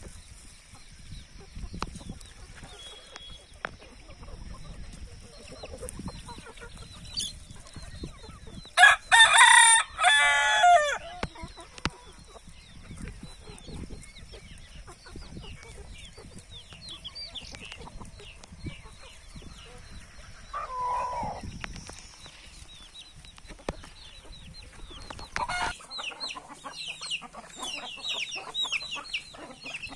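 A rooster crows once, loud and about two seconds long, about a third of the way in, while a flock of hens clucks quietly. A shorter call comes about two-thirds in, and many short high chirps follow near the end.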